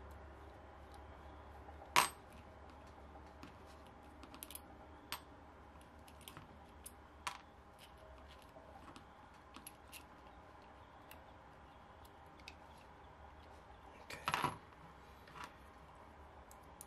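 Small metallic clicks and ticks as the rear cover screws of a YS FZ63 model glow engine are backed out with an L-shaped hex key and the screws and cover are set down. There is a sharp click about two seconds in and a short metal clatter a couple of seconds before the end.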